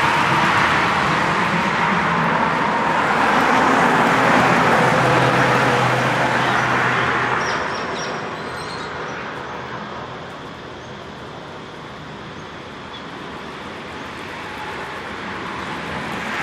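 Road traffic: vehicles passing close by with tyre noise and engine hum, loud for about the first half, then dying away, with the next vehicle approaching near the end.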